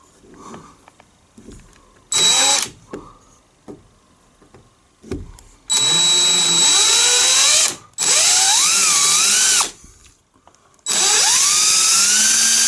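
Power drill boring a small pilot hole into the centre of a wooden dowel that plugs a stripped hinge screw hole. A short burst about two seconds in, then three longer runs of a couple of seconds each, with the motor whine rising in pitch at the start of each run.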